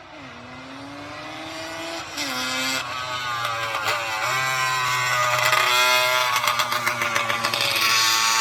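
A classic racing vehicle's engine accelerating hard on a hill climb, its pitch rising through the gears with upshifts about two, three and four seconds in. It gets steadily louder as it approaches.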